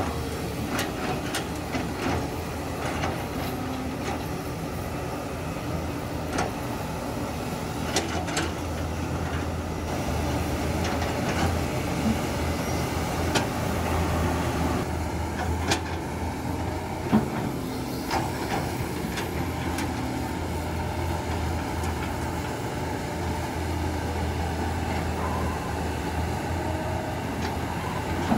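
Komatsu D31A crawler bulldozer's diesel engine running steadily under load, a little louder from about the middle on, with scattered sharp clanks and knocks of its steel tracks and blade on rock.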